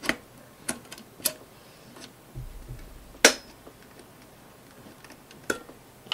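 A few sharp clicks and taps, the loudest about three seconds in, of blown glass cartridge fuses being prised out of their clip holders on a dimmer pack's circuit board with a small tool.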